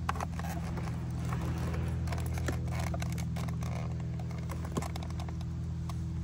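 Plastic parts and wiring scraping and clicking as cables are stuffed into a tight box at the base of an e-bike battery and a plastic cover is pressed into place. A steady low hum runs underneath.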